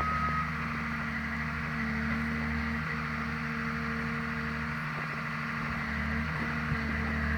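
Timber forwarder's diesel engine running steadily while its hydraulic crane swings logs. The engine note shifts slightly as the boom works, with a couple of light knocks.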